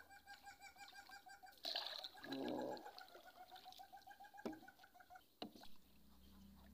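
A faint, rapid pulsed animal call: short pitched notes repeated about ten times a second in two runs, with a short break between them. It is the strange animal sound heard coming from the dark forest.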